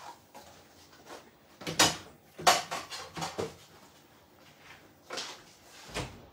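A handful of separate knocks and clatters of kitchen things being handled, the loudest two about two seconds in, with a few softer ones after.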